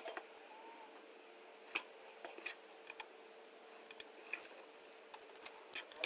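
A handful of faint, irregular clicks from operating a computer's mouse and keyboard.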